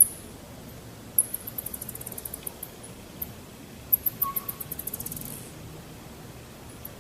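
Bat giving sharp, very high-pitched clicks: a few single clicks and two fast runs of clicks, one starting about a second in and one about four seconds in, each lasting over a second.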